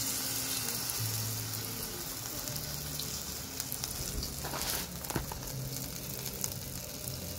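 Squid pieces frying in a pan of hot oil, sizzling steadily with scattered crackles, a few louder pops around the middle.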